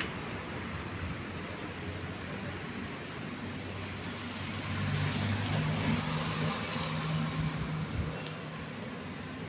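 A motor vehicle's engine hum over steady traffic hiss. The hum grows louder about halfway through and fades near the end.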